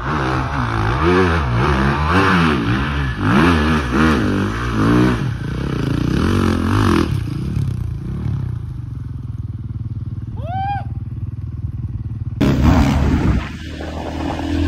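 Dirt bike engine revving up and down over and over as the rider works it through rough ground, then settling into a lower steady drone for the second half. About ten and a half seconds in there is a short whistle-like call that rises and falls. Near the end a sudden louder burst of engine and wind noise comes in.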